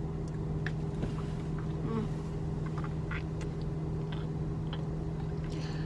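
Steady low hum of an idling car, heard inside the cabin, with faint scattered clicks and smacks of a liquid lipstick wand working on the lips.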